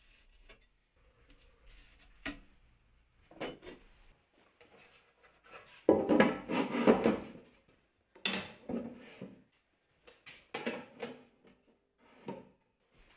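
Ball-bearing drawer slides and a sheet-aluminium drawer box being worked in and out: several metal sliding strokes with clicks and rubs. The longest and loudest stroke comes about six seconds in.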